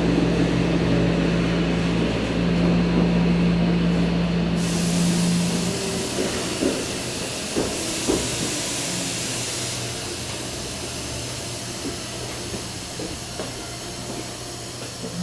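Cabin running noise of a Tokyo Metro 07 series car with a Mitsubishi PMSM VVVF drive as the train slows into a station. A steady hum fades out about five seconds in, a hiss joins at about the same time, and a few wheel knocks follow as the noise dies down.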